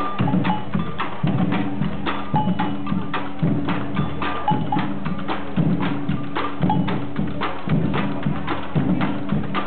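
Music with a steady percussive beat: sharp wood-block-like clicks several times a second over a repeating low bass and chord pattern.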